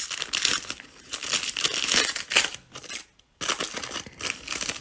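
Foil trading card pack crinkling as it is torn open and pulled apart by hand, in quick irregular rustles, with a brief pause about three seconds in before the crinkling starts again.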